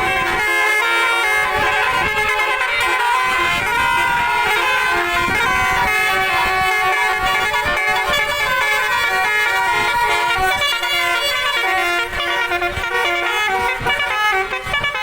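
Bus 'telolet' musical air horn playing a tune: a run of loud horn notes stepping from pitch to pitch, several tones at once, becoming choppier over the last few seconds.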